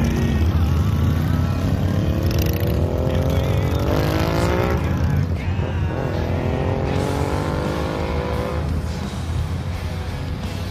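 Group of Harley-Davidson V-twin motorcycles pulling away from a stop, over a steady low rumble. The engine pitch rises, drops at a gear change about five seconds in, rises again, then fades slightly near the end.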